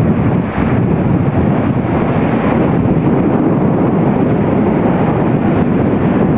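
Loud, steady rushing noise of wind buffeting the microphone, with no distinct events.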